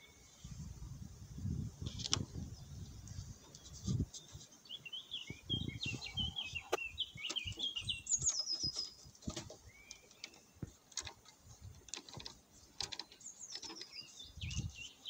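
A small songbird twittering in quick chirping phrases in the background, over handling noise: low bumps and scattered short clicks as fingers work at the inverter's wiring.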